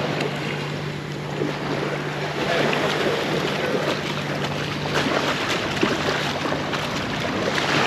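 Shallow seawater splashing and sloshing as a bull shark is dragged through the surf and let go, over breaking waves and wind buffeting the microphone. A steady low hum runs under it for the first five seconds or so.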